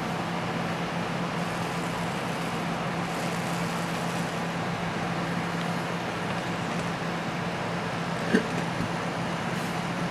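iPhone loudspeaker playing a steady low tone of about 165 Hz from a tone-generator app at full volume, with a distorted buzzing over it as water is still being driven out of the speaker. A brief click about eight seconds in.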